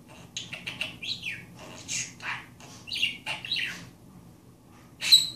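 Budgerigar chattering: a quick run of short chirps and warbles, then a short pause and one sharp, high chirp near the end.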